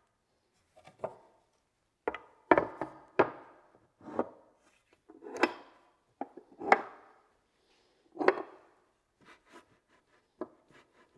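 Irregular knocks and clunks of wood and tools being handled and set down, about a dozen spread unevenly, some with a short ring after the hit.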